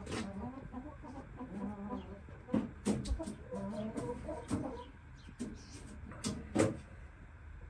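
Shamo chickens clucking softly, short low calls coming in runs, with a handful of sharp taps among them, the loudest near the end.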